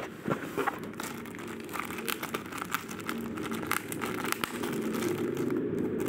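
Clear plastic packaging bag crinkling and crackling in quick irregular bursts as it is handled and opened around a doorbell push button. A low steady rumble grows louder toward the end.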